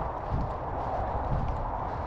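Footsteps of a person walking at an easy pace: low thuds about twice a second over a steady hiss.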